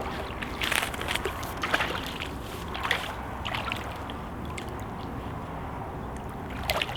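Water splashing and sloshing in short irregular bursts as a hooked chub is drawn in at the surface of a small river, over a steady low rush of the flowing water.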